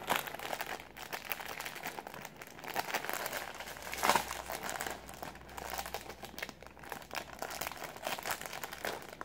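Plastic sandwich wrapper crinkling as it is handled and peeled open by hand. A run of small crackles, with a louder rip about four seconds in as the tear strip is pulled.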